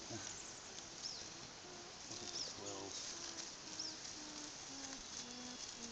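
Outdoor ambience in which a small bird repeats a short, high, rising-and-falling chirp about once a second over a steady hiss, with faint short low tones underneath.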